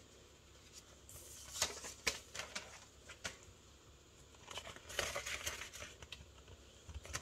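Faint crinkling and rustling of Canadian polymer banknotes and a clear plastic binder pouch as they are handled, with scattered light ticks and clicks.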